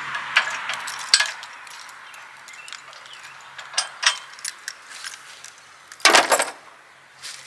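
Keys jangling and small metal clicks as a key works the lock on the kayak rack's pin, with a louder burst of clatter about six seconds in.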